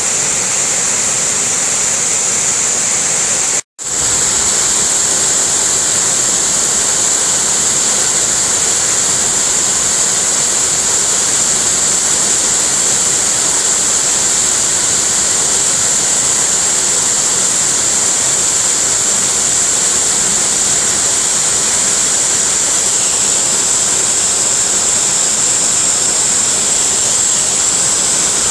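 Waterfall, a steady rush of falling water, broken by a split-second gap about four seconds in.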